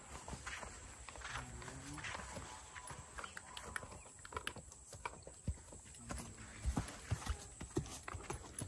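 Hooves of a ridden mare clip-clopping on a sandy dirt track as she is shown moving at her gait. The uneven knocks grow louder in the second half as she comes close.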